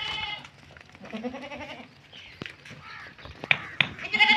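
A nanny goat and her kids bleating several times, with high-pitched bleats loudest at the start and at the very end. A few sharp clicks come about three and a half seconds in.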